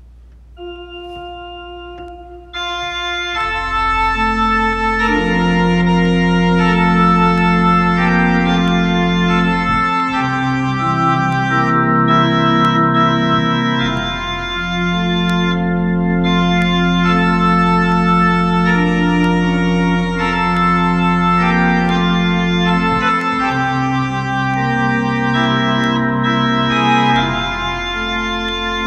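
Home electronic organ playing a hymn: a couple of single held notes at first, then full sustained chords over a steady bass line from about three seconds in.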